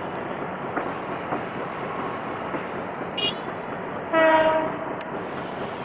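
Meter-gauge passenger train cars rolling past with a steady noise. About three seconds in there is a very short high toot, and just after four seconds a horn blast of about half a second, the loudest sound.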